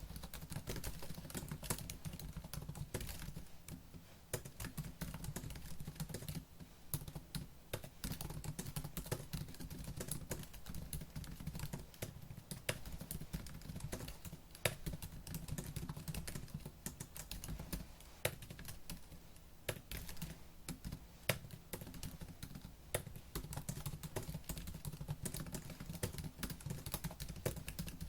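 Fast typing on a laptop keyboard: a dense, irregular stream of light key clicks with a few brief pauses.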